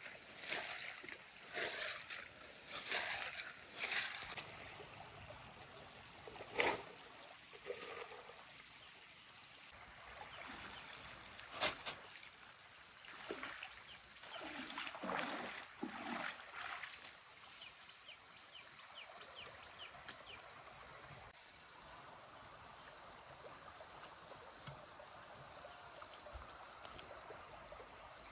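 Water sloshing as a woven basket of stream snails is swished through shallow stream water, about once a second, then splashing steps wading through the stream. Near the end only faint stream ambience with a steady high insect buzz.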